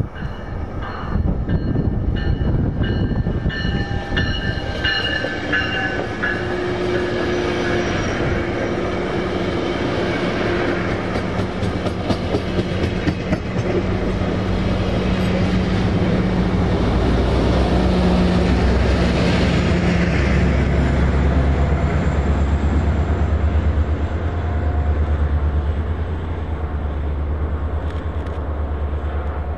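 A diesel-hauled train passing, its wheels clacking over rail joints, with a few high ringing tones in the first seconds. A deep diesel locomotive engine rumble builds in the second half.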